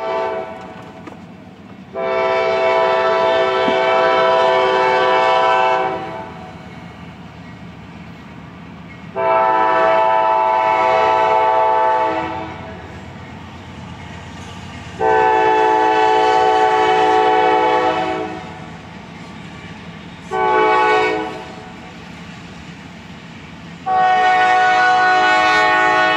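Multi-chime air horn of an approaching Norfolk Southern diesel locomotive sounding the grade-crossing signal: three long blasts, one short, then a final long blast held as the engines reach the crossing. A low rumble of the train's engines fills the gaps between blasts.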